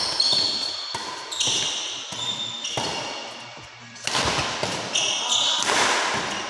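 Badminton doubles rally: several sharp racket hits on the shuttlecock at uneven intervals, mixed with short high squeaks of shoes on the court floor and footsteps.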